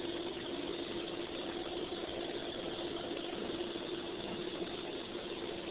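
Steady machine hum: one constant mid-pitched tone over an even hiss, unchanging throughout.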